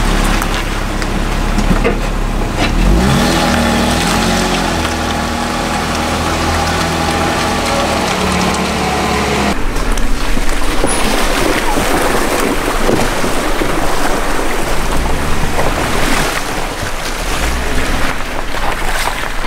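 Jeep Wrangler driving a rough dirt track, heard from a camera mounted on its side: a steady low rumble of wind and tyres with the engine's note pulling under load. About ten seconds in the engine note fades and rough crackling from the tyres on gravel and bumps takes over.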